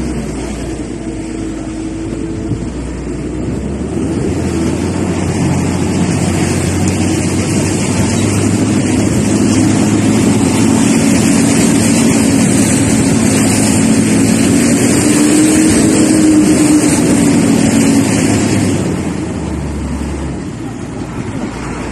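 Truck engine running hard on a rough dirt road, heard from the open cargo bed along with wind and road noise. The engine grows louder from about four seconds in and eases off near the end.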